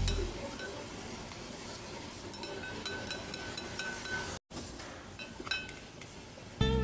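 A metal spatula clinking and scraping against a stone hotpot as pork is stir-fried in sesame oil: scattered light clinks over a steady hiss.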